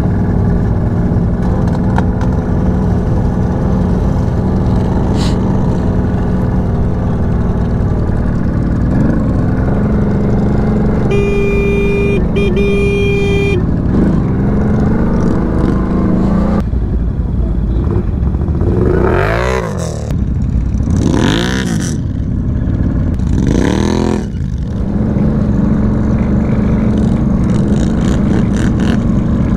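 ATV engine (CFMoto CForce 1000 V-twin) running steadily under way. About eleven seconds in, a horn-like tone sounds twice. Later the engine revs up and back down three times in quick succession before settling back to a steady drone.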